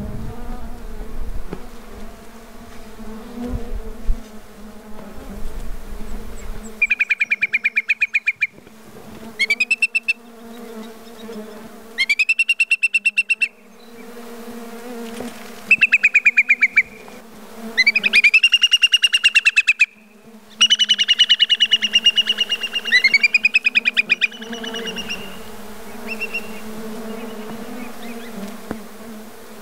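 Hudsonian whimbrels giving their rapid, rippling whistled trills, about seven bursts of a second or so each starting about seven seconds in, two birds overlapping near the middle. A low rumble comes before the calls, and a steady low buzz runs underneath.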